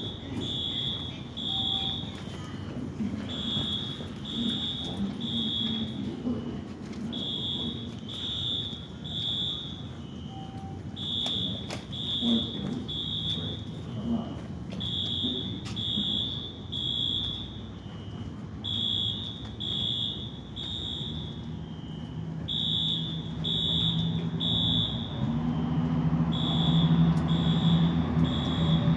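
A transit station's fire alarm sounding in the three-pulse evacuation pattern: three high beeps, a pause, then again, over and over. A low steady drone builds in the last few seconds and becomes the loudest sound.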